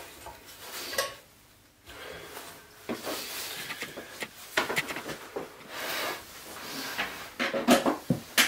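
Scattered knocks, rubs and light clatter from handling a bench grinder, its power cord and the wooden blank screwed onto its spindle, on a wooden workbench. The grinder's motor is not running.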